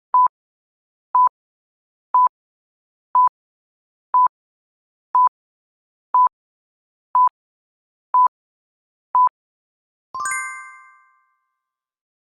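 Countdown timer sound effect: ten short electronic beeps of one steady pitch, one a second, then a bell ding about ten seconds in that rings out over about a second, marking time up.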